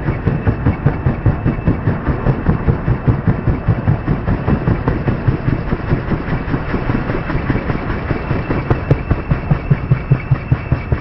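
Helicopter running close by, its rotor blades beating in an even rhythm of about five pulses a second over a steady engine noise. The beats grow sharper near the end.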